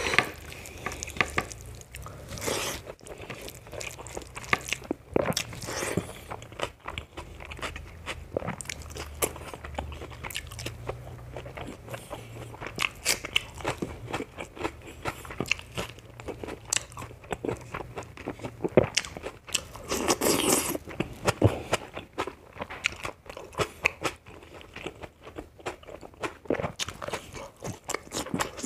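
A person eating close to the microphone, chewing and biting mouthfuls of rice, pork sausage and vegetables eaten by hand, with many short clicks throughout. A louder, denser stretch of chewing comes about twenty seconds in.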